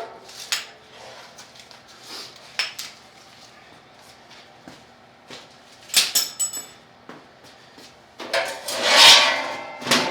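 Metal tools and parts being handled during assembly work: scattered clicks and clanks, a ringing metallic clink about six seconds in, then a louder scraping, rustling noise near the end.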